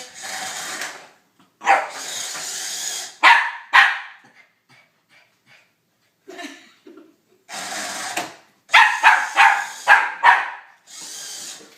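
A puppy barking at a toy radio-controlled car: two sharp barks about three seconds in and a quick run of about half a dozen around nine to ten seconds. Between them come spells of the RC car's small electric motor whirring.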